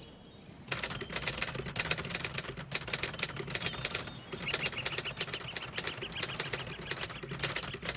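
A flock of birds flapping their wings, a dense rapid flutter that starts about a second in, with short chirping calls in the second half.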